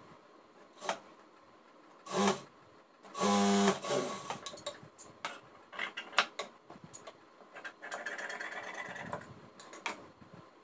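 Jack industrial sewing machine running in two short bursts, a brief one about two seconds in and a steadier half-second one just after three seconds. Then comes a string of sharp clicks and a stretch of cloth rustling as the fabric pieces are handled.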